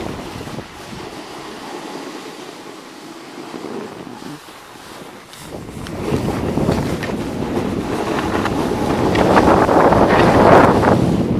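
Wind noise on the microphone: a rushing, buffeting haze, fairly low at first, then growing louder and rougher from about halfway through.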